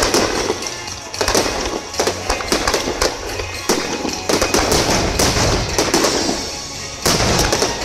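Fireworks barrage: shells bursting in quick succession with many sharp bangs and crackling, and a loud cluster of reports near the end.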